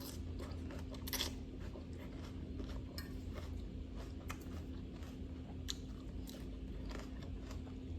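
Close-up chewing and crunching of a salad of large raw vegetable pieces, heard as scattered, irregular sharp crunches and mouth clicks over a faint steady hum.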